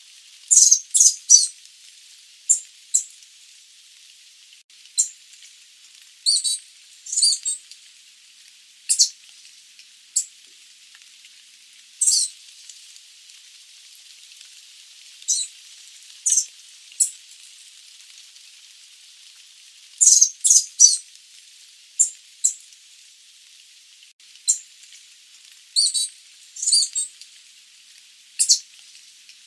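Sooty babbler giving short, sharp, high-pitched call notes, singly and in quick clusters of two to four, over a steady background hiss.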